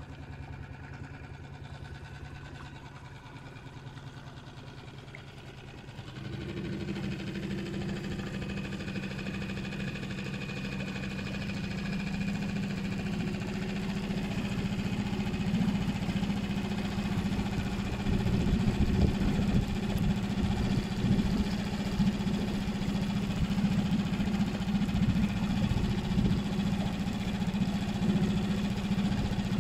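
Small boat's outboard motor running slowly, then throttled up about six seconds in. Its hum steps up in pitch and grows louder as the boat gets under way.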